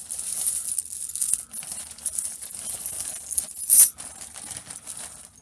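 Strands of beaded costume necklaces and metal chains being handled and pulled apart, their beads and links clicking and jangling against each other, with one louder clatter nearly four seconds in.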